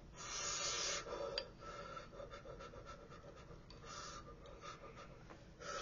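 A person breathing out hard through pursed lips, panting against the burn of very spicy food. There is one long breath near the start and shorter ones later.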